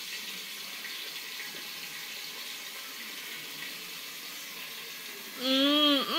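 Steady faint hiss, then about five seconds in a loud, drawn-out vocal exclamation that dips and rises in pitch.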